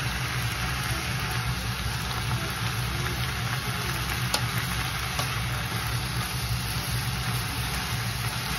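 Yakisoba frying in a hot pan, a steady sizzle over a constant low hum.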